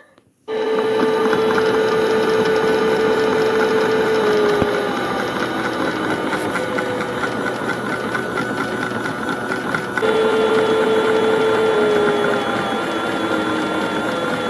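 Battery-powered motor of a Theo Klein Miele Novotronic toy washing machine running its drum through a wash, a steady whirring whine. It starts about half a second in, and its pitch dips slightly twice.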